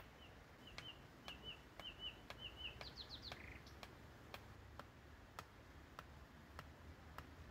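A small songbird calling: a run of short repeated chirps, then a quick burst of higher, falling notes about three seconds in. Faint regular clicks, about two a second, run underneath.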